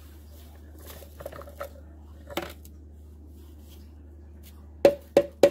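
Crushed vanilla cookie crumbs being tipped from a container into a bowl of melted butter. First there is soft rustling with a single click. Near the end comes a quick, even series of sharp hollow knocks, about four a second, as the container is tapped to shake the crumbs loose.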